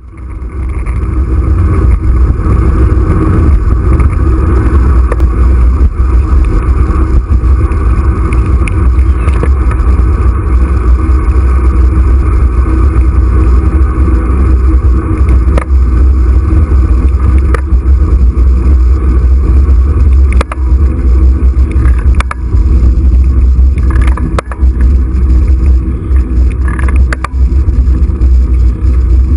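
Steady wind rumble on the microphone of a handlebar-mounted camera while riding along a road, with occasional short knocks and rattles from bumps.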